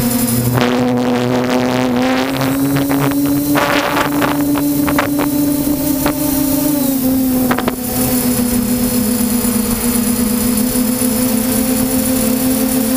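DJI F550 hexacopter's six electric motors and propellers whining steadily in flight, heard from the camera on board, the pitch dropping slightly about seven seconds in. Rushes of wind noise on the microphone come and go over the first five seconds.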